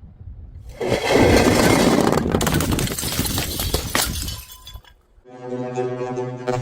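A glass bottle smashing on stairs about a second in, followed by about three and a half seconds of shards crackling, clinking and scattering with a few sharp clinks. From about five seconds in a steady pitched musical tone sounds.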